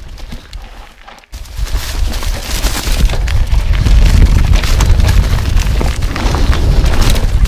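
Mountain bike riding fast down a forest trail: wind buffeting the action camera's microphone in a heavy low rumble, over the clatter of tyres on dirt and leaves and the bike's rattling. It starts quieter, dips briefly about a second in, then stays loud from about two seconds on.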